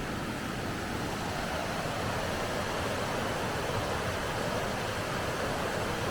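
River water rushing, a steady even sound.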